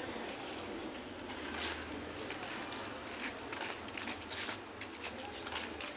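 Faint outdoor background noise: a steady hiss with a low hum and a few soft taps.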